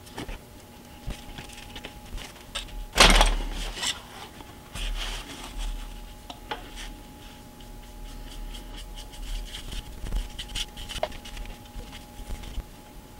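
Paintbrush strokes on a flat card base lying on a paper towel: a run of soft scratchy brushing sounds mixed with handling noises. There is one loud knock or clatter about three seconds in, and a faint steady hum underneath.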